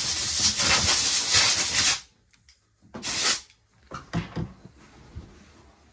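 Hissing spray cleaning a chainsaw's nylon air filter: a long burst that cuts off about two seconds in, a second short burst about a second later, then a few faint handling taps.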